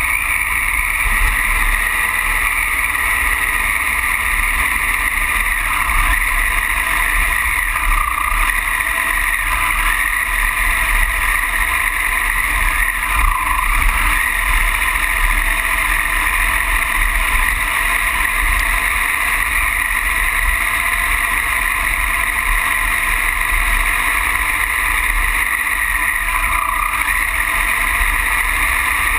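Triumph Tiger Explorer's three-cylinder engine droning steadily as the bike rides a rough gravel track, heard from a camera low on the front fork with wind buffeting the microphone. About halfway through there is a brief rise as the front wheel splashes through standing water.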